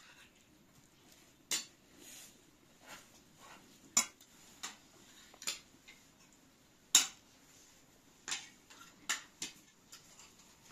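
Metal spoons and forks clinking and scraping against ceramic plates and a serving dish during a meal, in irregular sharp taps, the loudest about four and seven seconds in.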